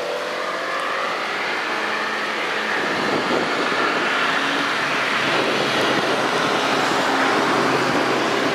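A car drives past on the wet track, its engine note rising as it approaches and its tyres hissing on the wet road as it goes by, with steady rain hiss growing louder toward the end.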